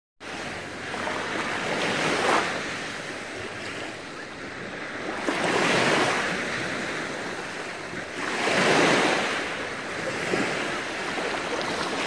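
Small waves washing up on a sandy beach and drawing back, each wash swelling and fading, three times.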